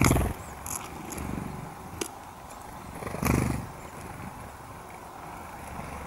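Small songbirds' wings whirring as they take off from the feeder, in two short bursts, at the start and again about three seconds in. A faint high chirp and a single sharp tick come between them.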